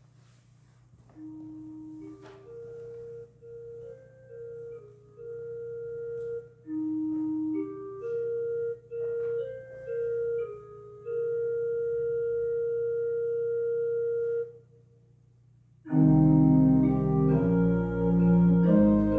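Church organ playing the postlude: a soft single-line melody of held notes, a brief pause, then loud full chords entering near the end.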